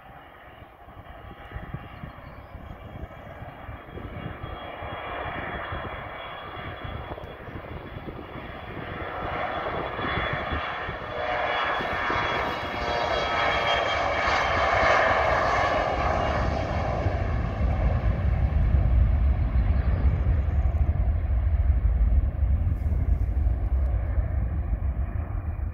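Mitsubishi CRJ-900 regional jet on its takeoff roll at full power. Its two rear-mounted GE CF34 turbofans build to a loud whine of many high tones as it passes, and from about two-thirds of the way in give way to a deep rumble from the exhaust behind it as it heads away down the runway.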